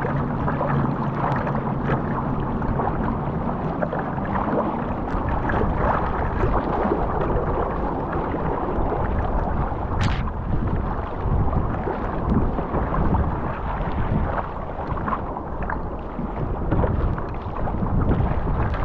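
Water rushing and splashing along a surfski's hull as it is paddled through choppy sea, with wind on the microphone. There is one brief, sharper splash about halfway through.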